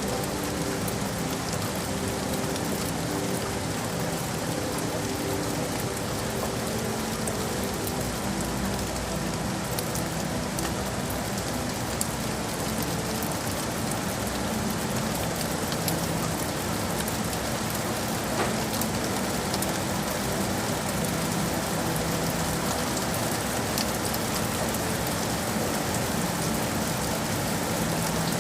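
Steady rain falling on hard surfaces, with occasional sharper drips. A faint low steady hum runs underneath.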